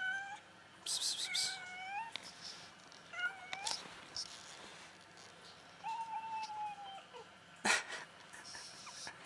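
Domestic cat meowing repeatedly: a call at the start, one about a second in, a short one around three seconds, and a longer, drawn-out meow about six seconds in. A single sharp click just before eight seconds.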